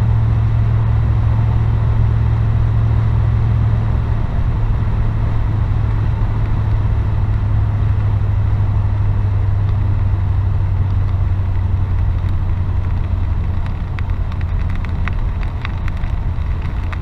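Steady low drone of a car's engine, heard from inside the cabin. A few faint ticks come near the end.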